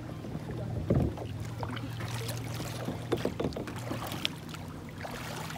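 Water splashing and sloshing around a kayak as a person swims close alongside, with a thump about a second in.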